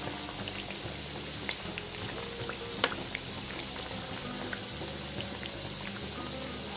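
Sweet corn vadas deep-frying in hot oil: a steady sizzle with scattered small crackles, and one sharper click about three seconds in.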